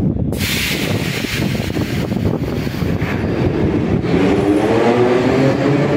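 Moscow Metro train pulling out of the station. A burst of air hiss comes just after the start, over a rumble, and from about four seconds in the traction motors give a whine that rises in pitch as the train gathers speed.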